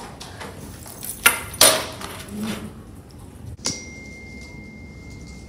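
Two short, loud noises, then a sharp click followed by a steady high-pitched ping that keeps ringing.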